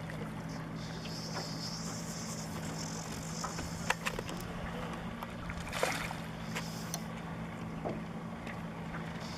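Fly reel clicking in on and off stretches while a small hooked striped bass runs line, over a steady low hum, with a couple of sharp knocks in between.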